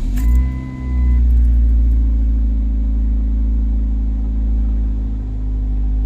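Ford Focus 2.0L four-cylinder engine starting: it catches right away, flares briefly, then settles into a steady idle.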